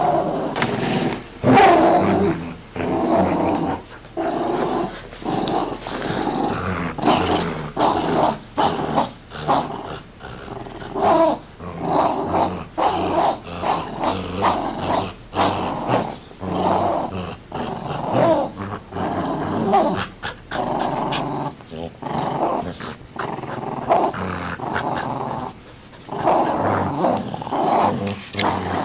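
A dog growling over and over in short rough bursts during play.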